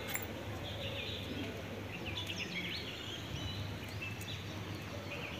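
Faint outdoor ambience: small birds chirping now and then over a steady low hum.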